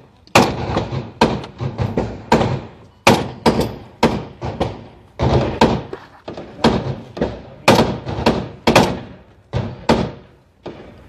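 Sustained gunfire: single gunshots in quick, uneven succession, about two to three a second, each followed by a decaying echo.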